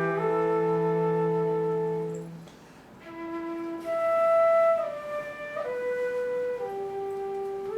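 Slow instrumental ensemble music led by flute: a held chord of several long notes, a brief pause about two and a half seconds in, then a slow flute-like melody of single long held notes.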